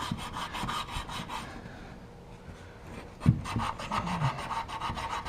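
Copper water pipe being scrubbed clean by hand with rapid back-and-forth rasping strokes, about six a second, to remove burnt flux before re-soldering. The scrubbing pauses about a second and a half in, then resumes after a knock about three seconds in.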